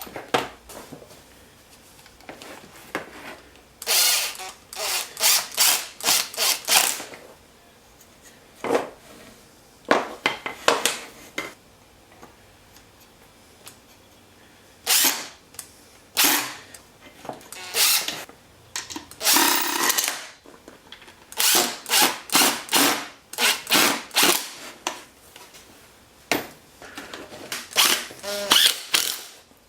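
Power drill run in short bursts of well under a second each, in several clusters with pauses between, driving screws into the plywood parts during assembly.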